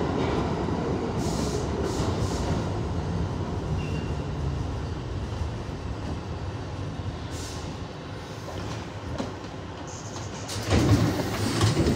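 R62A subway train running along the track, its steady rumble gradually fading. A sudden loud burst of noise comes near the end.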